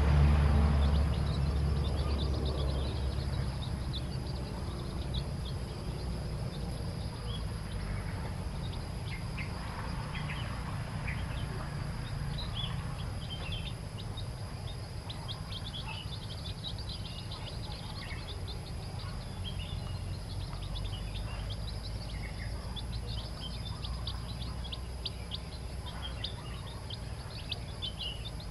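Newly hatched chicks peeping: short, high cheeps, scattered at first and coming thick and fast in the second half. Underneath is a steady low rumble that fades over the first few seconds.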